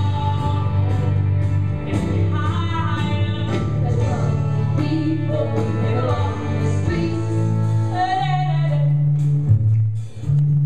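Young singers, a boy and then a girl, singing a pop song live over instrumental backing with a steady bass line.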